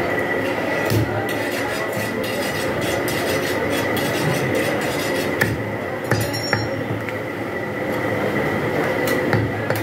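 A steady machine-like din with a constant high whine, broken by a few short sharp knocks of a butcher's blade on a wooden chopping block.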